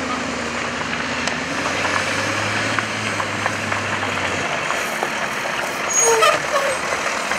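Cal Fire wildland fire engine running as it drives slowly through the brush, its low engine hum dropping away about four and a half seconds in. A brief squeal, likely from the brakes, sounds about six seconds in.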